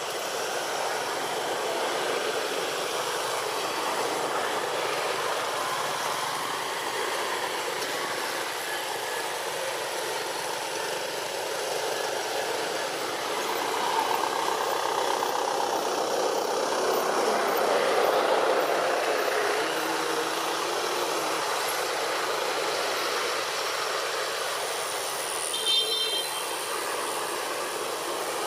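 Steady drone of motor traffic that swells and fades as a vehicle passes in the middle, with a brief sharp click near the end.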